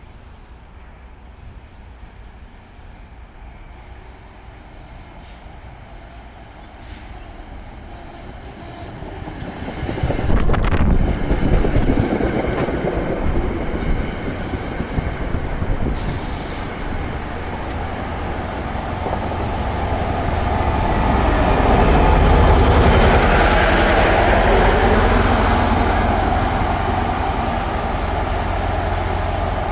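NJ Transit commuter train coming through: quiet at first, its rumble builds from about eight seconds in and turns loud about two seconds later, then stays loud with a high, thin wheel squeal near the end.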